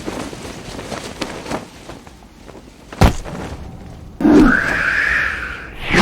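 Designed super-speed sound effects: a soft airy rush, a sharp hit about three seconds in, then a loud rushing whoosh lasting under two seconds with a hissing edge.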